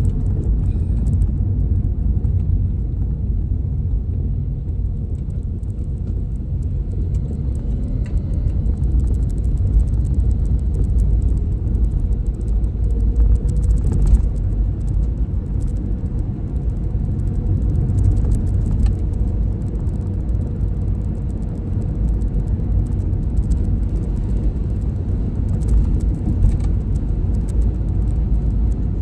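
Car driving along a paved road: a steady low rumble of engine and tyre noise, with a brief knock about halfway through.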